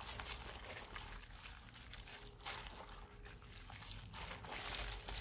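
Cured perilla leaves squeezed and swished by gloved hands in a stainless steel bowl of soaking water: faint, irregular sloshing and dripping, with the soft crinkle of thin plastic gloves. The leaves are being wrung out of their desalting soak.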